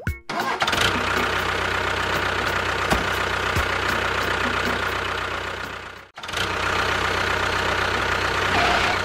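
Tractor engine running steadily. It breaks off for a moment about six seconds in, then resumes.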